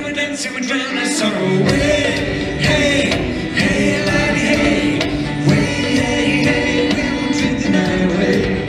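Live Celtic rock band playing a drinking song: a man singing over fiddle, acoustic guitar and drums. The bass drops out for about the first second and a half, then comes back in.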